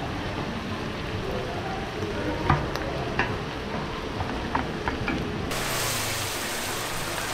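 Spicy chicken feet stir-frying and sizzling in a hot pan, with a few sharp clicks of a metal utensil against the pan in the middle. About five seconds in, a brighter, hissier sizzle sets in suddenly.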